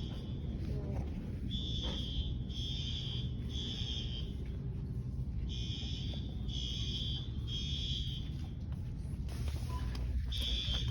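Building fire alarm sounding a high-pitched beep in groups of three, about a second apart, with a longer pause between groups: the temporal-three evacuation pattern. A steady low rumble runs underneath.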